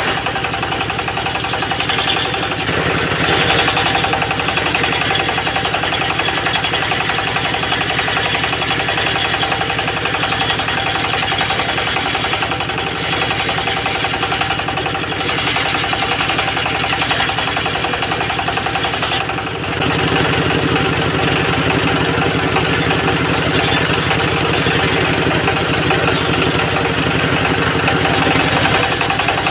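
Engine of a homemade circular sawmill running steadily under load as its disc blade rips teak into 3 cm boards. About 19 seconds in the sound dips briefly, then comes back with a heavier, deeper note.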